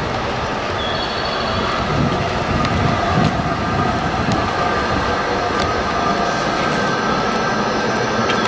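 JR West 521-series electric train running slowly past at close range: steady rumble and rolling noise of the cars, with a thin high whine over it.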